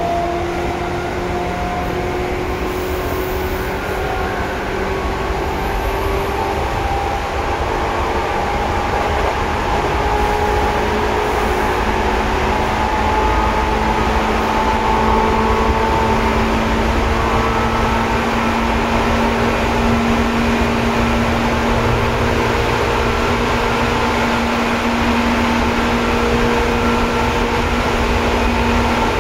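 Seibu 2000 series electric train running, heard from inside the car: the traction motor and gear whine climbs in pitch as the train picks up speed, over a steady rumble of wheels on rail. About halfway through, a steady low hum grows stronger and the whole sound gets a little louder.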